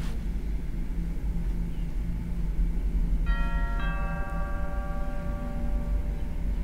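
Two-note doorbell chime about halfway through, the second note following half a second after the first, both ringing out for about two seconds, over a steady low hum.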